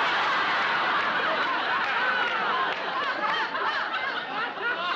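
Studio audience laughing, many voices at once at a steady level.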